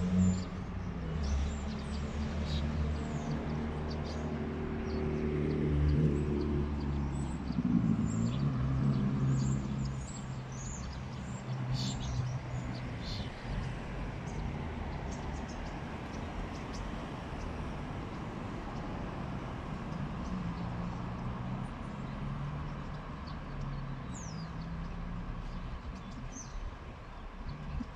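A motor vehicle's engine running close by, swelling to its loudest about six to nine seconds in and fading away by about ten seconds, over a steady traffic hum. Birds chirp with short, high calls.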